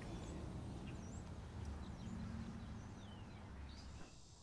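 Faint outdoor ambience: a steady low rumble with scattered small bird chirps. The rumble drops away about four seconds in.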